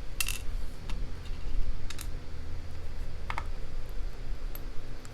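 A few light, sharp clicks, spread about a second apart, as the pins of a disassembled padlock are knocked out into a hand.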